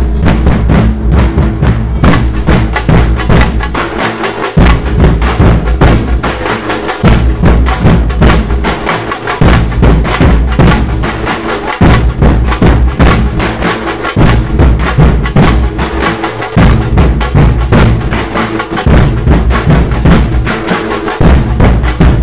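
Nasik dhol troupe drumming loudly: many large dhols beaten with sticks in a fast, driving rhythm, with heavy low beats that drop out briefly about every two and a half seconds.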